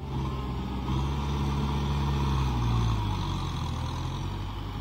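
Kubota tractor's diesel engine running steadily under load as the tractor pushes mud with a front blade through a flooded paddy; its note eases slightly about three seconds in.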